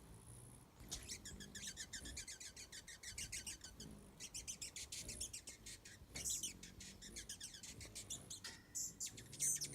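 Hummingbirds chattering while they fight: long runs of rapid, high chips, about ten a second, broken by a few sharper squeaks.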